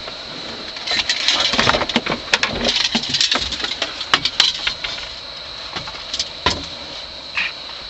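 A burst of rattling, knocking and splashing from about a second in to about four and a half seconds in, as a hooked catfish is netted and landed in the boat, then a few single knocks. A steady high whine runs underneath throughout.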